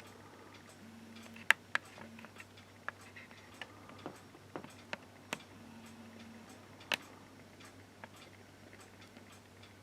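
Scattered small clicks and ticks at uneven intervals over a low steady hum, with a few short faint whines.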